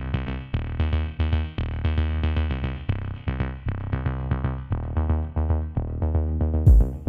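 Electronic background music: synthesizer notes pulse in a quick steady rhythm over a bass line, and a drum beat comes in near the end.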